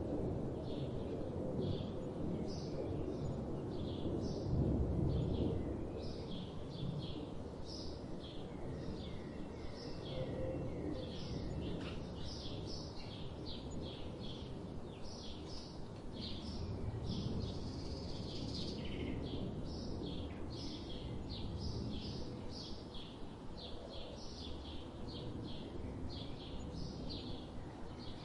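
Birds chirping: many short, high chirps following one another several times a second, over a steady low background rumble.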